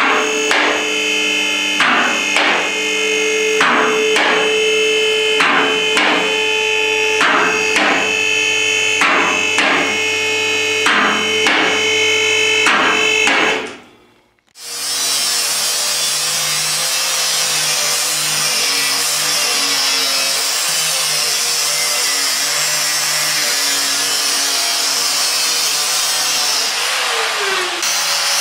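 Background music with a steady beat for about the first half. After a sudden break, an angle grinder runs against steel on a car's sill with a loud, steady, high-pitched grinding. Its pitch sags briefly near the end.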